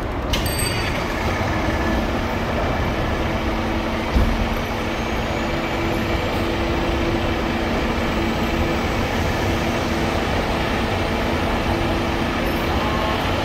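Fire engine's diesel idling with a steady drone, mixed with city traffic noise. One thump about four seconds in.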